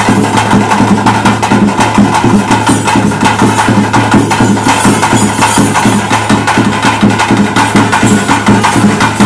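Traditional ritual band music of a Tulu daiva nema (bhuta kola): loud, fast, dense drumming over a steady held drone.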